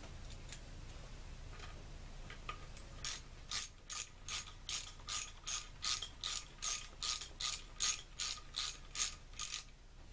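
Hand ratchet clicking steadily, about three clicks a second, as the oil collector screws on a T-90 transmission case are run in and tightened.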